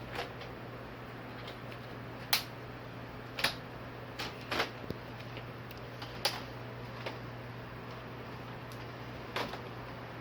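Irregular sharp clicks and light taps, about eight in ten seconds, of plastic and metal TV parts being handled during disassembly, over a steady low hum.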